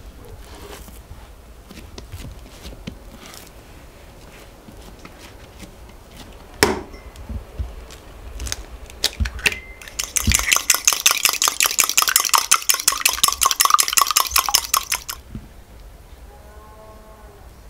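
An egg cracked with a sharp tap on the rim of a china teacup, then a metal fork beating the egg in the cup in rapid, steady clinking strokes for about five seconds.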